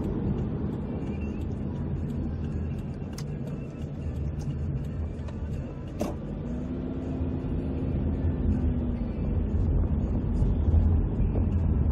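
Car on the move: a steady low rumble of engine and road noise, with a sharp click about six seconds in and a faint steady hum for a couple of seconds after it.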